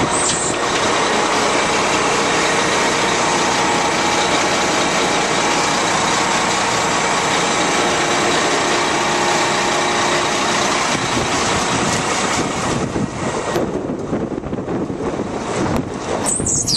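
Diesel engine of a Kenworth T800 concrete mixer truck, a Cat C-10, running steadily, getting a little quieter and more uneven after about 13 seconds. A short high hiss, like air being let out, comes near the end.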